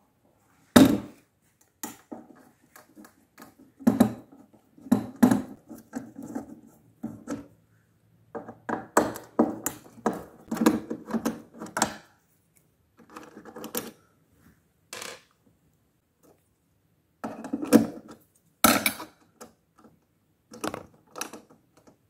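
A screwdriver working out the screws of a small metal cabinet lock plate: irregular metallic clicks, taps and short scrapes in clusters, with brief pauses between them.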